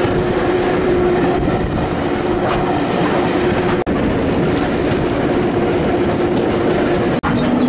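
Railway carriage running along the track, heard from on board: a steady rumble of wheels on rail with clickety-clack over the rail joints and a constant hum. The sound cuts out briefly twice, about four and about seven seconds in.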